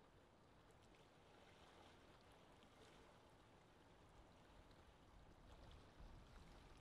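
Near silence: a faint steady hiss, with a low rumble rising a little near the end.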